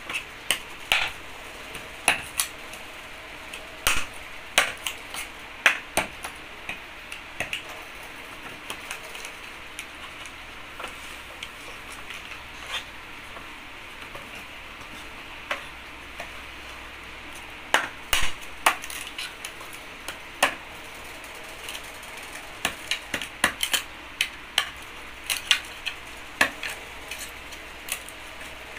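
Sharp, irregular knocks and clicks of a machete blade striking and prying at the slats of a wooden packing crate, in clusters with a quieter stretch in the middle.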